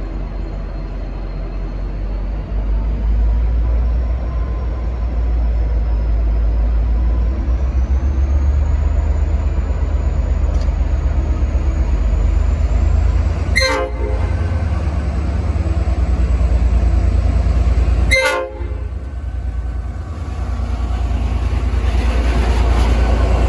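V/Line N class diesel-electric locomotive working under power, its engine giving a loud, deep, steady rumble, with a faint high whine rising slowly over the first dozen seconds. Two short, sharp horn blasts sound about 14 and 18 seconds in.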